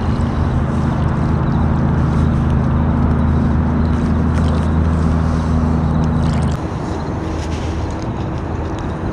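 Low, steady engine drone over a hiss of wind and water, cutting off suddenly about six and a half seconds in.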